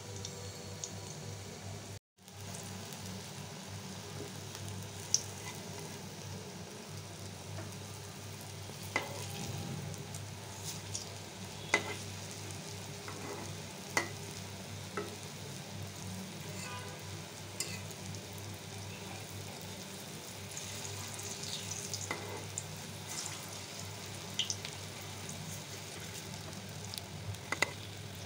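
Raw-banana kofta balls deep-frying in hot oil in a wok, with a steady sizzle. Now and then a metal spatula turning them gives a sharp click or scrape against the pan.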